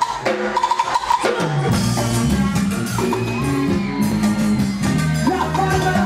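Live band music: a drum kit, bass guitar and keyboard playing an upbeat Latin dance tune, with dense drum hits in the first second and a half.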